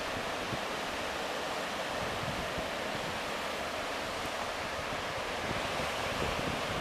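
Ocean surf: a steady, even wash of breaking waves, with a little wind on the microphone.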